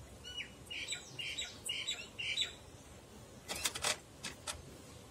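Small bird chirping: a quick run of about six short calls in the first two and a half seconds, then a few sharp clicks a little later.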